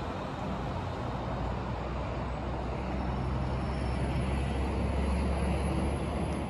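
Steady low drone of a two-car diesel multiple unit's engines as the train pulls away down the line, growing slightly louder toward the end.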